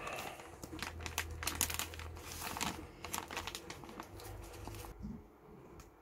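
A plastic bag of washing powder crinkling and rustling as hands handle it and measure the powder out with a plastic cap. The crackling dies down about five seconds in.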